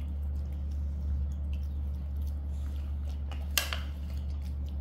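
Young macaques chewing and smacking on noodles: small wet clicks scattered through, with one sharper click about three and a half seconds in. A steady low hum runs underneath.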